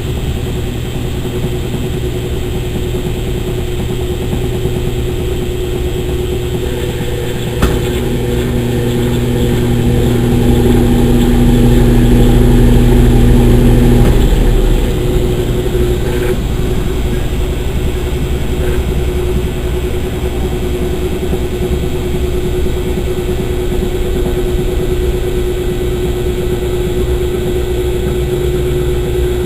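Consul Maré Super 10 kg washing machine running with a steady motor hum. A click about a third of the way in starts a louder stretch with an added low tone that lasts several seconds, then the machine settles back to its earlier hum.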